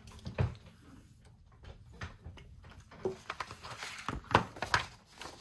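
Paper tags and card being handled on a work table: light rustling with a few soft taps, the sharpest about four seconds in.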